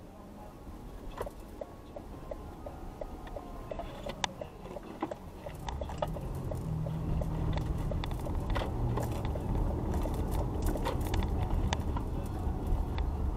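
Inside a car, a turn-signal relay ticks steadily at about three clicks a second. About five seconds in the ticking stops and the low rumble of the engine and tyres grows as the car pulls through the turn and speeds up, with scattered small clicks and rattles.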